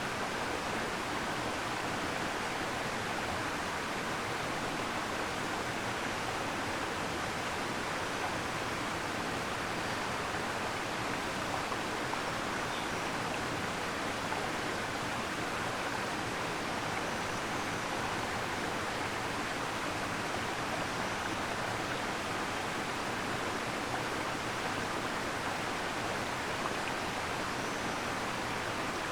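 Waterfall: a steady, unbroken rush of falling water that keeps the same level throughout.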